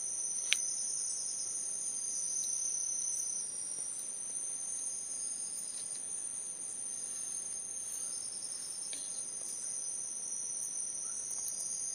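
Tropical forest insects shrilling steadily in two high-pitched unbroken tones. A few sharp light knocks, one about half a second in and another near nine seconds.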